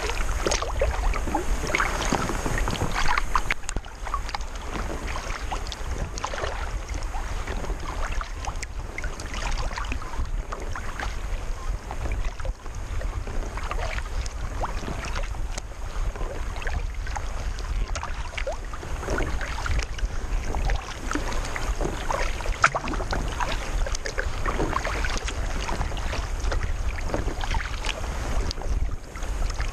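Sea kayak being paddled through calm sea water: irregular splashes and drips from the paddle and water lapping along the hull, over a steady low rumble of wind on the microphone.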